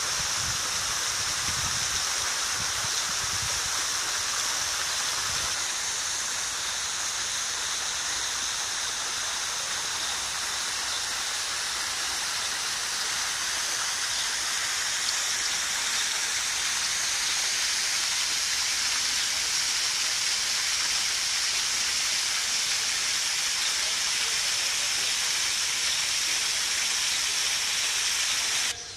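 Waterfall pouring down an artificial rock face into a pool: a steady rushing hiss that cuts off abruptly at the very end.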